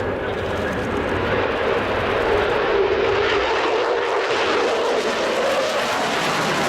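Jet fighters flying past, the steady rushing noise of Eurofighter Typhoon jet engines.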